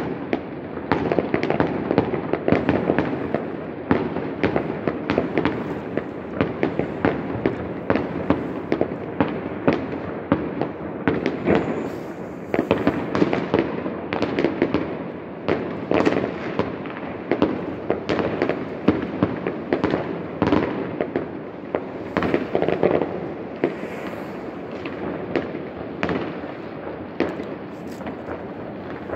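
Many fireworks and firecrackers going off at once in the distance: a dense, unbroken string of bangs and pops over a steady din of blasts.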